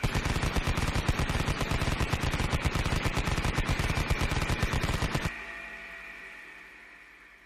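Vulcan-type rotary cannon firing one long, very rapid burst for about five seconds. The burst cuts off suddenly, and a high whine fades away as the spinning barrels run down.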